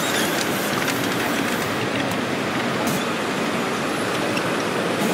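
Live steam model train running in a large hall: a steady, even noise with a few faint clicks.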